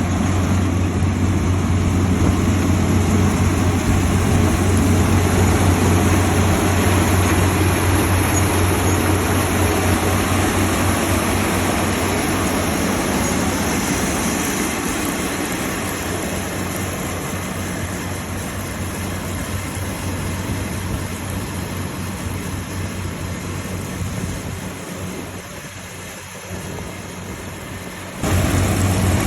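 Combine harvester running steadily while harvesting rice, a continuous loud engine and machinery noise with a low hum. It grows fainter over the second half, then comes back suddenly at full loudness just before the end.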